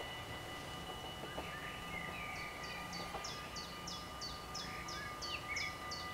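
A songbird repeating a short, high, downward-flicked call about three times a second, starting a couple of seconds in, with a few other chirps, over steady low wind noise. Faint steady high ringing tones sit underneath.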